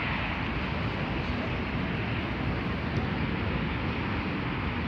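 Steady outdoor background noise: a continuous low rumble and hiss with no distinct events.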